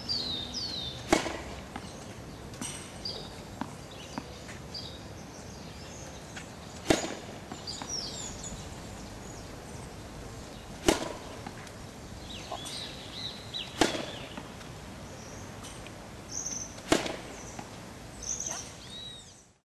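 Tennis racket striking the ball five times, a few seconds apart, each hit a sharp crack. Birds chirp throughout.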